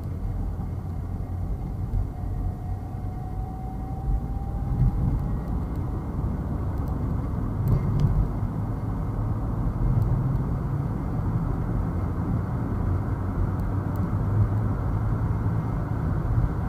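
Car driving through city traffic: steady road and engine rumble, with a faint whine that slowly rises in pitch in the first few seconds and a few light clicks about halfway through.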